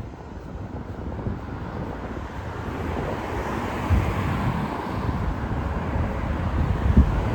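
Street traffic: a passing vehicle's noise swells about three seconds in and eases off toward the end, over low rumbling of wind on the microphone.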